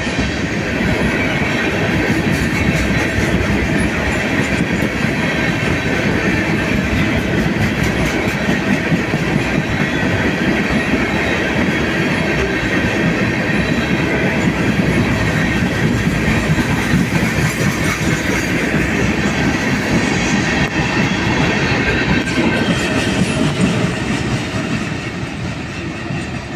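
Freight train of tank cars rolling past close by: a steady, loud rumble of steel wheels running on the rails, a little quieter near the end.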